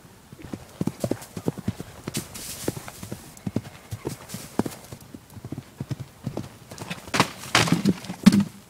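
Horse's hooves thudding in a steady canter rhythm on a sand arena. Near the end comes a louder jumble of hoof impacts and scuffling as the horse stops short at a small jump instead of taking it, a refusal from a frightened horse.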